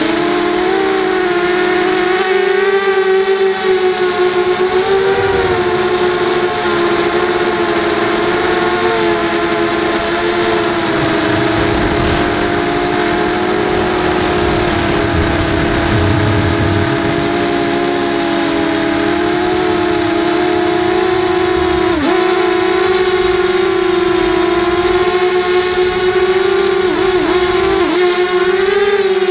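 Motors and propellers of a Porket Racer 240 quadcopter, with RCX brushless motors, whining steadily as heard from its onboard camera. The pitch wavers gently with throttle and dips sharply once about three-quarters of the way in.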